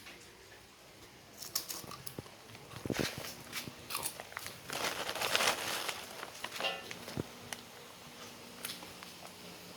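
Dogs crunching and chewing snack biscuits, in irregular bursts of crackly crunches, busiest in the middle.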